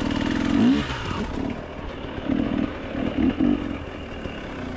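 Enduro motorcycle engine worked on the throttle in uneven bursts, its pitch rising and dropping, with a quick rev about a second in and several short blips later on: the stop-and-go throttle of a bike picking its way up a steep climb over loose soil and boulders.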